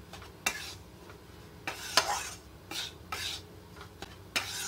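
A spatula scraping and stirring ghee-roasted wheat flour around a metal kadhai in quick, irregular strokes, about one or two a second, with the loudest scrape about two seconds in.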